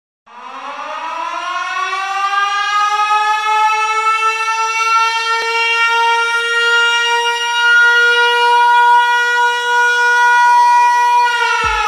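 An air-raid siren winds up from a low pitch over about three seconds, holds a steady wail, and begins to wind down near the end, as a kick drum comes in.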